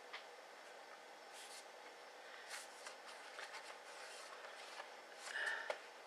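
Faint handling noises of hand tools and fingers on a laptop's bottom cover: scattered light ticks and short scrapes, with one louder brief rub a little after five seconds.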